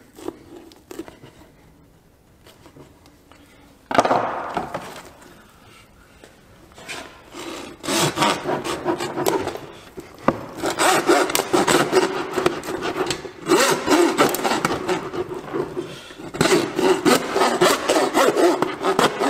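Hand bow saw cutting through whitetail deer rib bones in rapid back-and-forth strokes. It starts after a few quiet seconds and pauses briefly twice.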